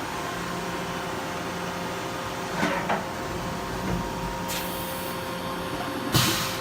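Yama Seiki VMB-1020 vertical machining center running its program: a steady hum from the geared-head spindle and axis drives with several fixed tones, and a couple of short whirs of axis moves about three seconds in. A brief hiss about four and a half seconds in, and a louder hiss starting near the end.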